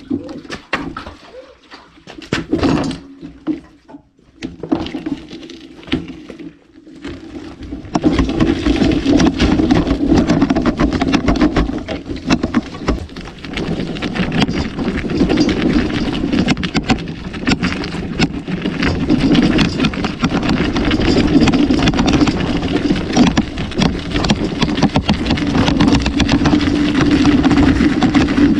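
Honda EB6500 generator being wheeled on its steel frame and wheels: scattered knocks and bumps at first, then a steady rattling rumble from about eight seconds in as it rolls over rough ground.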